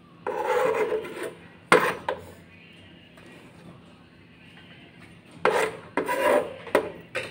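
A kitchen knife scraping and chopping minced garlic on a plastic cutting board: rasping scrapes, a sharp knock of the blade about two seconds in, then a quieter stretch, then more scraping and several knocks near the end.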